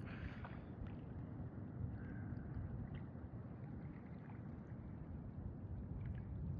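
Steady wash of moving water, with a low, even rumble and a few faint ticks.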